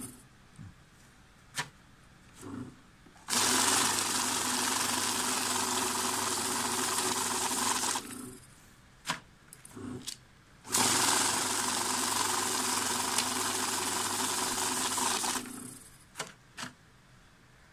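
Secure LD-26M banknote counter running twice, each run about five seconds of motor whirr and rapid flutter as a stack of bills is fed through. Between the runs come a few short clicks.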